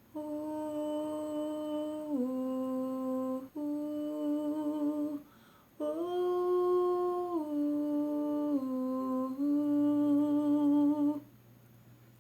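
A voice humming a slow, wordless melody in long held notes that step down and back up between a few pitches, in three phrases with short breaks for breath.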